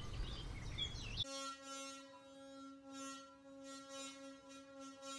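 Water-filled stainless steel pot made to sing by hands rubbing its metal handles: a steady ringing hum with overtones that swells and fades with each stroke, with a faint rasp of skin on metal. Birdsong and outdoor noise cut off about a second in, where the hum begins.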